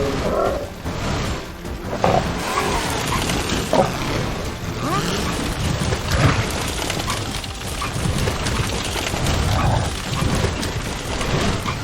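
Cartoon action soundtrack: music mixed with booms and crashing impact effects.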